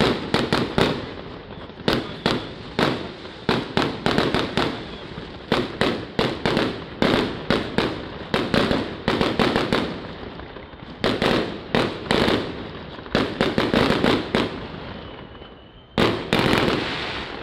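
Aerial fireworks bursting overhead: a dense run of sharp bangs and crackles, several a second, with a short lull and then one more loud bang near the end.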